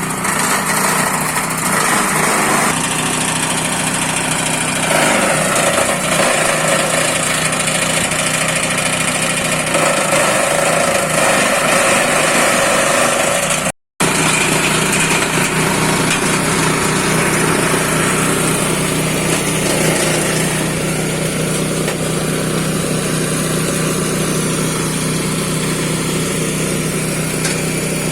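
Engine-driven forage and grass chopping machine running steadily, with a brief dropout about halfway through.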